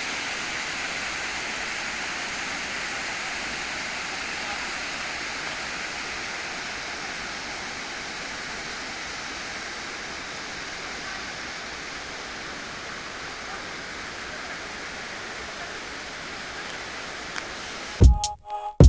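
Waterfall rushing in a steady, even roar of falling water, easing a little as it goes on. Near the end, electronic music with heavy drum hits cuts in and is the loudest sound.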